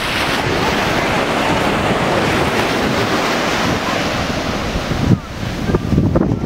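Ocean surf breaking and washing up the sand in a steady rush, with wind buffeting the microphone in gusts over the last second or so.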